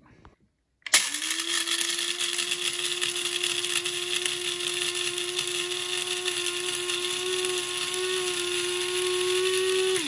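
Electric blade coffee grinder running, its blades smashing up coffee beans. It starts suddenly about a second in and runs steadily for about nine seconds, its pitch creeping up slightly, then cuts out at the end.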